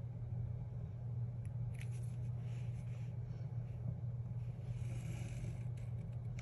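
Soft scratching of lines being drawn on a planner page along the edge of a stencil, with a few light clicks, over a steady low hum.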